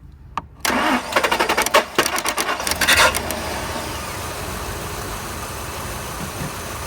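A click as the starter solenoid is jumped with a screwdriver, then the 1999 Lincoln Navigator's V8 cranks on the starter for about two and a half seconds, catches, and settles into a steady idle. The start comes from bypassing the ignition feed to the solenoid, because the key will not crank it.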